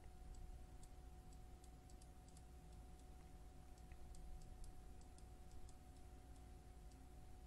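Faint, irregular computer mouse clicks, about two to three a second, over a low steady electrical hum.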